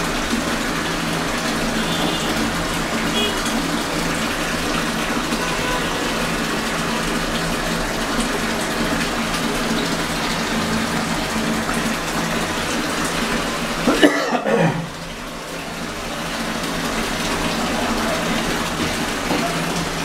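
Water draining out of a Singer top-loading washing machine's tub, a steady rush of running water. About fourteen seconds in there is a brief clatter, after which the water sound drops and slowly builds again.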